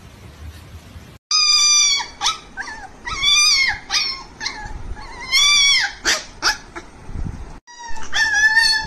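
Husky puppies howling: a run of high, wavering puppy howls, each under a second long, starting about a second in, then after a brief break near the end more howling.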